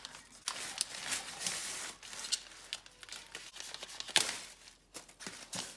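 Thin plastic carrier bag and wrapping crinkling and rustling as a string-tied package is handled and a knife cuts through the butcher's string. The sound comes in irregular bursts of scrapes and snaps, the sharpest a little past four seconds in.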